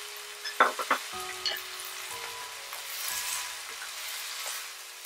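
Shredded pork and vegetables sizzling in a hot frying pan as they are stirred with a wooden spatula, with three sharp knocks a little over half a second in.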